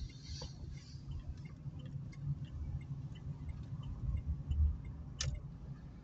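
Low, steady rumble of an Opel Meriva's engine and tyres heard from inside the cabin while driving slowly, with faint scattered ticks and a single sharp click about five seconds in.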